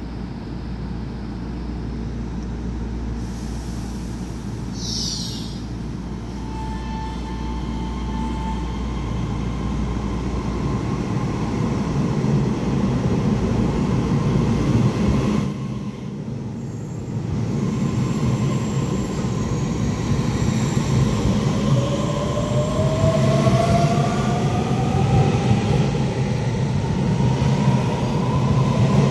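Taiwan Railways EMU3000 electric multiple unit pulling away and accelerating, its rumble growing louder. About halfway through the power briefly drops off and then comes back, in two-stage acceleration, and a traction-motor whine rises steadily in pitch. Near the end a sharp, very high whistle sets in over it.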